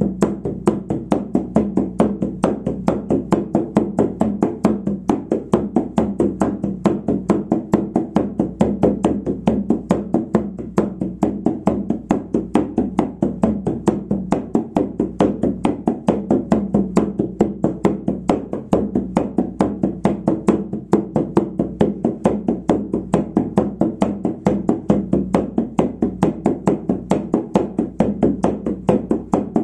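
Shamanic frame drum struck with a soft beater in a steady, rapid, unbroken beat, the repetitive drumming used to carry a shamanic journey. Each stroke gives a short, low boom.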